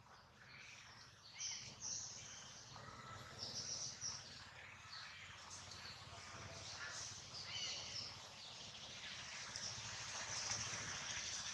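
Faint, short high-pitched animal chirps and squeaks, coming every second or so, over a low steady background rumble.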